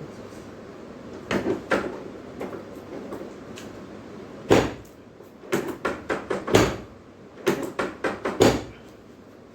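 Sharp knocks and thumps from a chiropractic treatment table during adjustments, about ten of them, some in quick pairs, the loudest about halfway through and near the end.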